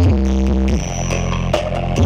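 Electronic dance music with heavy, sustained bass notes that slide down in pitch twice, played loud through a miniature sound system.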